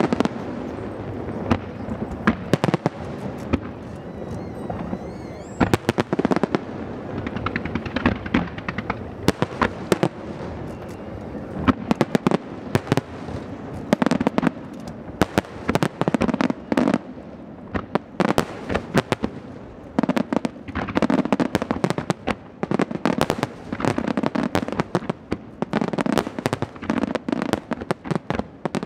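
Aerial fireworks shells bursting in a rapid barrage, sharp bangs one after another with hardly a gap, coming thicker in the second half.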